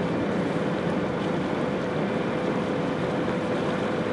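Hot tub's motor running steadily: a constant hum over an even rushing noise.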